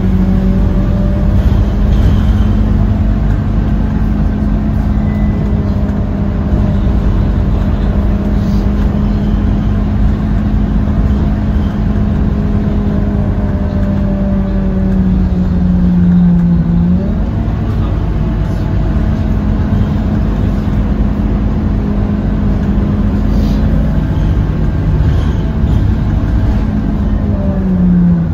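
Scania K230UB city bus's five-cylinder diesel engine running under way, its steady drone dipping in pitch and picking up again about halfway through and once more near the end.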